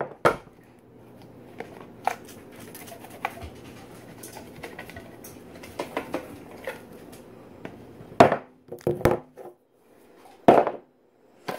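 Light scattered clicks, ticks and crinkles of kitchen handling as pepper is shaken over raw pork steaks in disposable aluminium foil pans. There is a louder knock just after the start and a few more near the end.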